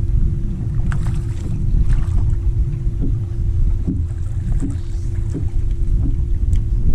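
Wind rumbling on the microphone aboard a bass boat, over a steady hum from the bow-mounted electric trolling motor, with a few light knocks.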